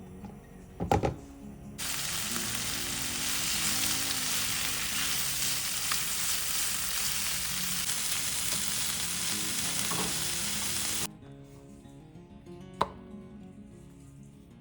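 Food frying in hot oil in a pan: a steady sizzle that starts abruptly about two seconds in and cuts off suddenly about nine seconds later. A single sharp knock comes just before the sizzle starts.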